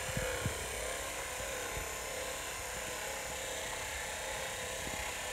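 Homemade battery-electric auger, a salvaged electric forklift steering motor with a cycloidal reducer, running steadily under load as it screws a ground anchor into the soil.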